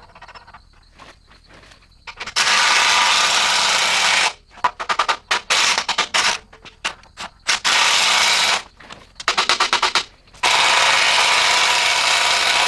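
Impact wrench driving a press screw to push a new knurled bushing into its bracket. After about two seconds of near quiet it runs in several long bursts, broken by spells of rapid hammering blows where the tight bushing resists.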